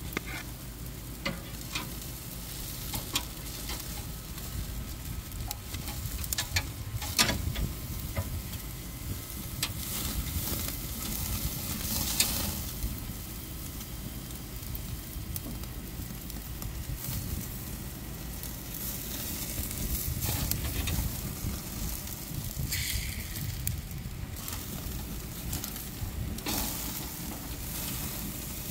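Steaks sizzling on the grate over a flaming charcoal fire: a steady sizzle and crackle with scattered sharp pops and clicks.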